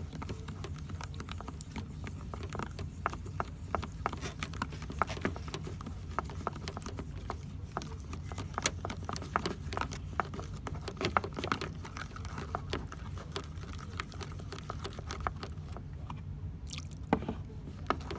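Slime being mixed in a borax solution: many small wet, sticky clicks and crackles, irregular and close together.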